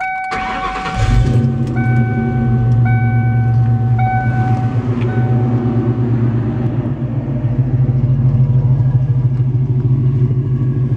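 1996 Ford Mustang GT's 4.6-litre SOHC V8, breathing through BBK long-tube headers, an X-pipe and a Flowmaster cat-back exhaust, cranks briefly and fires about a second in, then settles into a steady, deep idle. A dashboard warning chime beeps about once a second for the first six seconds.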